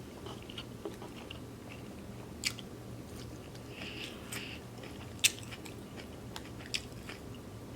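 Close-miked chewing of a gyro and fries: soft wet mouth sounds with a few sharp clicks, over a low steady hum.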